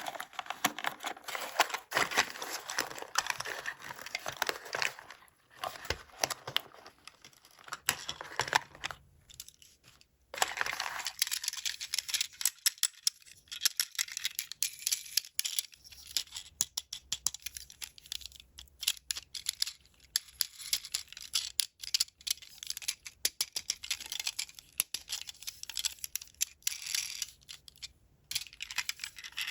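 Toy packaging being unwrapped by hand: crinkling and tearing for the first nine seconds or so. After a brief pause comes a long run of sharp clicks and crackles.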